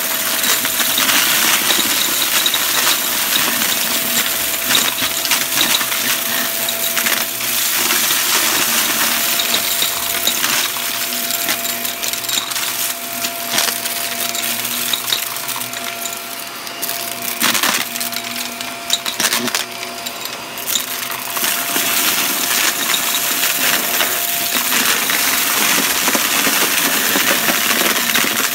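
Shark upright vacuum cleaner running steadily with a steady motor hum while sucking up a pile of mixed small hard debris, which rattles and clicks constantly as it is pulled in. The rattling thins out for a few seconds past the middle, then picks up again.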